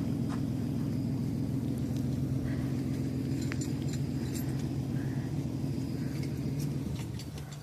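An engine running steadily, with scattered light metallic clinks over it; the engine sound drops away near the end.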